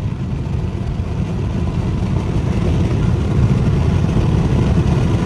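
Infiniti Q50's twin-turbo 3.0 V6 (VR30DDTT), fitted with aftermarket lower downpipes, pulling under acceleration: a steady low rumble of engine, exhaust and road noise that grows gradually louder as the car keeps building boost.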